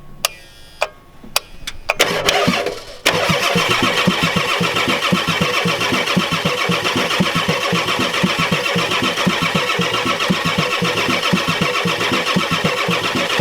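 1993 Ford F-250's 7.3L IDI diesel being cranked by its starter. A few sharp clicks from the glow plug relay come first, then a short first burst of cranking. From about three seconds in comes a long, steady, rhythmically pulsing crank that stops abruptly, with the engine never firing: the fuel has not yet been bled up to the cracked-open injector lines.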